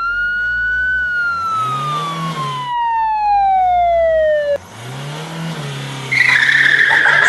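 Cartoon sound effects for a toy ATV: a long whistling tone that falls slowly in pitch and cuts off suddenly, over a low motor rev that swells twice. About six seconds in, a louder screech starts as the quad pops a wheelie.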